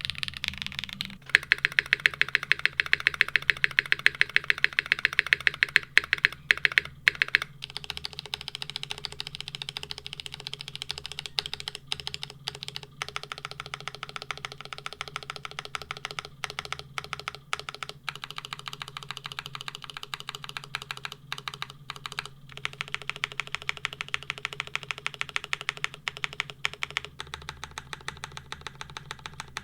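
Geonworks W1-AT mechanical keyboard being typed on: a fast, continuous run of keystroke clacks, with a few louder keypresses standing out. The first second or so is the tail of typing on a different board.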